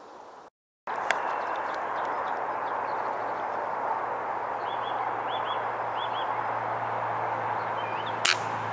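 Steady background rush with a low hum, a small bird giving a few short chirps midway, then a single sharp crack near the end: a .22 sub-12 ft-lb FX/Logun hybrid air rifle being fired.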